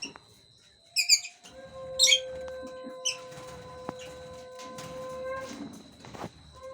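Young lovebirds giving three loud, sharp chirps about a second apart, over a steady hum of several held tones that stops near the end.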